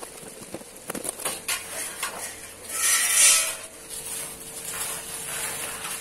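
Light-steel angle bar and steel ruler clinking as they are handled on a plywood sheet: a few sharp metallic clicks, then a scrape lasting about a second, about three seconds in, the loudest sound here.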